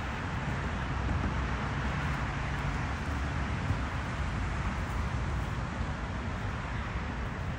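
Steady outdoor background noise with a heavy low rumble and no speech, and one faint brief tap about halfway through.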